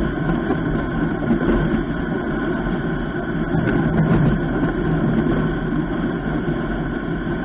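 Snowmobile engine running steadily while riding across a frozen lake.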